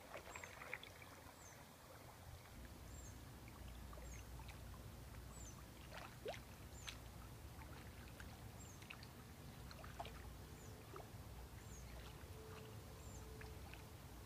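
Quiet canoe paddling: soft paddle strokes with water dripping and trickling off the blade. A faint high chirp repeats about once a second throughout.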